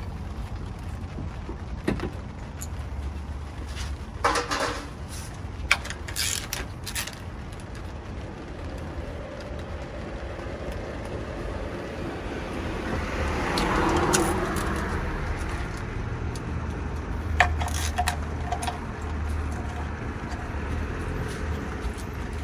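Sharp metallic clicks and clinks of a hand ratchet and socket on the valve cover bolts of a Honda B18C engine, in clusters about four to seven seconds in and again around seventeen seconds in. Under them runs a steady outdoor traffic hum, and a passing vehicle swells and fades about twelve to fifteen seconds in.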